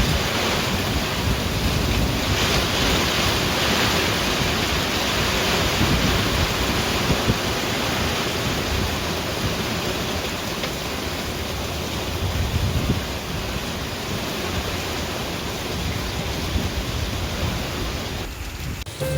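Heavy typhoon rain pouring down in a steady hiss, with gusts of wind buffeting the microphone.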